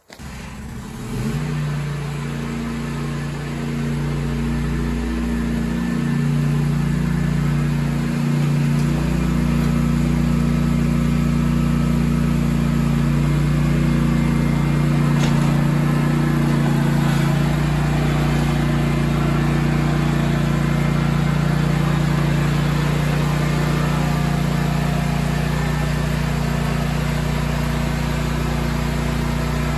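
Zero-turn mower engine coming on suddenly and running steadily at constant speed, growing louder over the first few seconds before settling.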